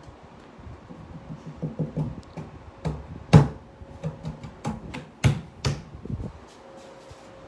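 A hand tapping and knocking on the plastic frame of a Sharp TV: a dozen or so irregular taps and knocks, the loudest about three and a half seconds in and again just past five seconds.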